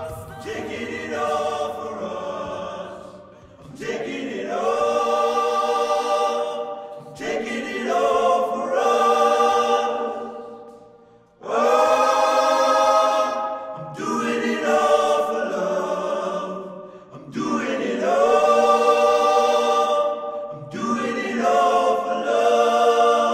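Music: wordless choir vocals singing held chords in about seven phrases of roughly three seconds each, with short breaks between them.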